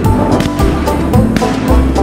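Background music with a steady drum beat and sustained pitched notes.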